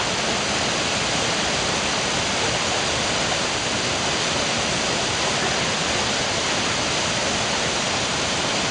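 Waterfall pouring into its plunge pool: a steady, unbroken rush of falling and churning water.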